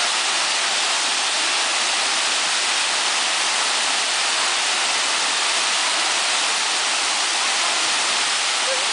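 Waterfall crashing down, a steady loud rush of falling water.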